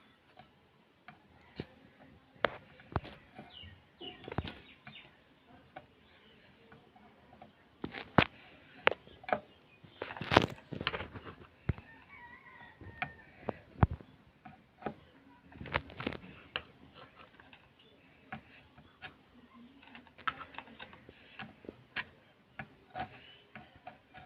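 Scattered light clicks and taps of hand tools on a circuit board while solder pads are cleaned with soldering paste, with a louder scraping hiss about ten seconds in. A few faint chirps sound in the background.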